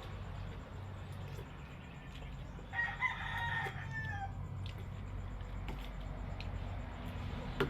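A rooster crows once, about three seconds in: a call of about a second and a half that ends in a falling note, over a steady low hum. A sharp click comes near the end.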